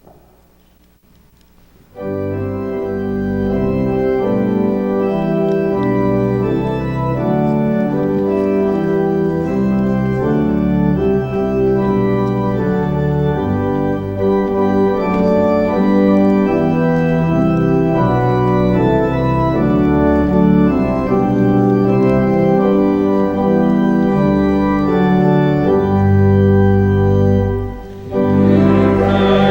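Church organ playing a hymn introduction in slow, sustained, changing chords. It starts about two seconds in, breaks off for a moment near the end, and comes back fuller.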